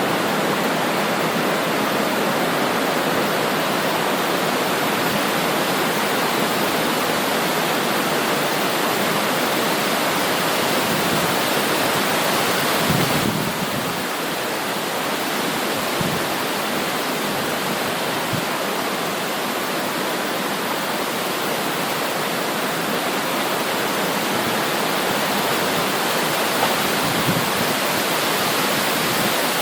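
Fast-flowing river water rushing in a steady, dense wash, dipping slightly in level about halfway through.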